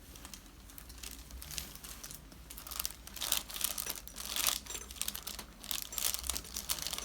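Rustling and crinkling of clothing and the chiropractic table's cover as the patient is handled and shifted on the table, in short irregular bursts that grow louder and more frequent from about halfway through.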